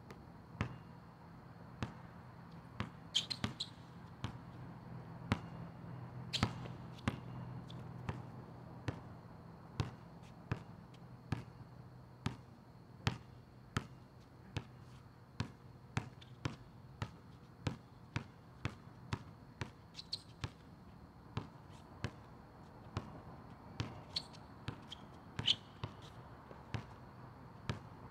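Basketball dribbled on an asphalt court, sharp bounces coming about twice a second, with a few louder hits, the loudest near the end, over a faint steady hum.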